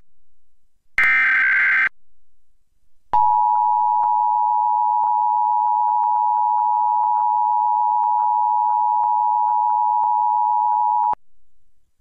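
Emergency Alert System broadcast audio: the last SAME header data burst, about a second long and starting about a second in, then the EAS two-tone attention signal (853 and 960 Hz together) held steady for about eight seconds before cutting off. Together they open a National Periodic Test alert.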